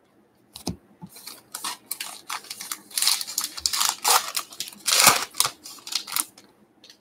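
Crinkly wrapper and cards of a baseball card pack being handled: a run of quick, sharp rustles and scrapes from about half a second in until near the end, the sound of a pack being torn open and its cards pulled out.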